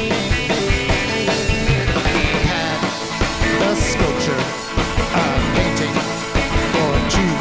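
Rock band playing live, full band with drums and guitar at a steady beat.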